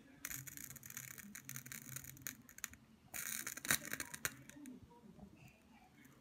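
Crackling and sizzling with small sharp pops, in two stretches, the second with the sharpest pops: a candle flame burning down at the water's surface in a glass, water boiling off where it meets the flame.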